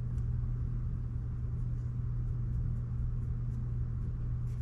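Steady low hum and rumble of background room noise, with a few faint light ticks.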